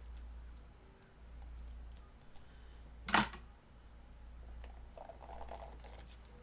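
Quiet tabletop handling of painting tools and a stencil: scattered light clicks and scrapes, with one sharp knock about three seconds in, over a low steady hum.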